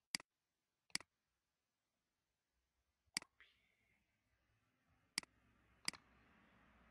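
Five single, sharp clicks of a computer mouse button, spaced irregularly over a near-silent background.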